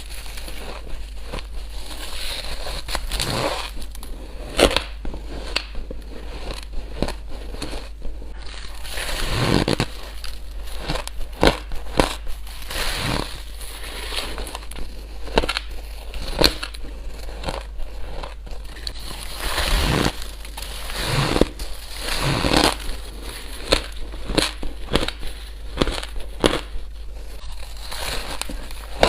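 Spoonfuls of shaved ice being bitten and chewed close to the microphone: irregular crunching made up of many sharp crackles, with a longer grinding crunch every few seconds.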